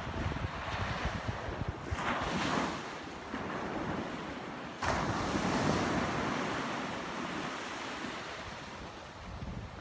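Ocean waves breaking and washing on the shore, swelling in surges about two and five seconds in, with wind buffeting the microphone.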